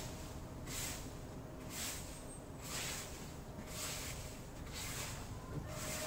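Honeybees at a hive entrance buzzing faintly and steadily over a low background rumble, with a soft hiss that swells about once a second.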